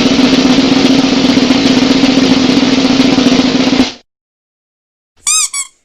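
Snare drum roll: a fast, continuous roll that stops abruptly about four seconds in. A short two-part high-pitched sound follows near the end.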